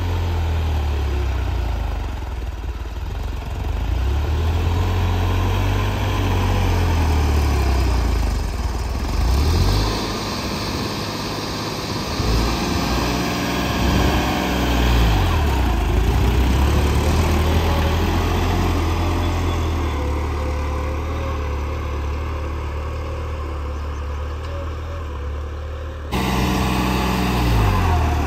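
New Holland 3630 tractor's three-cylinder diesel engine running steadily while pulling a disc harrow through ploughed soil. Its pitch sags and recovers a few times in the middle, and the sound gets suddenly louder near the end.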